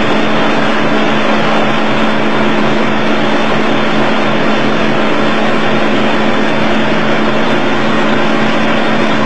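A boat's engine running steadily, a constant hum under a loud, even rushing noise.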